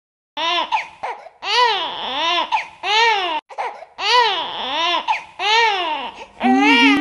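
An infant crying: a run of wails that each rise and fall in pitch, starting a moment in and coming about once a second, with a lower, more drawn-out wail near the end.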